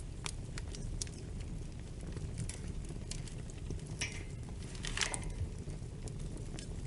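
Wood fire crackling in a fireplace: a steady low rumble of burning, with scattered sharp pops and two louder snaps about four and five seconds in.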